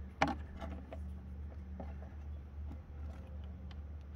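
Handling noises from a rubber hose and an empty plastic bottle being fitted by hand in an engine bay: a sharp click about a quarter second in, then a few faint taps, over a steady low hum.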